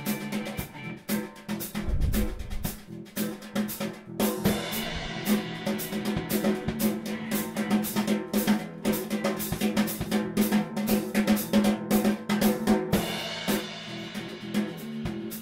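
Band music with a drum kit, bass and guitar. The drums are loudest, playing quick, busy snare and bass-drum hits over a steady bass line.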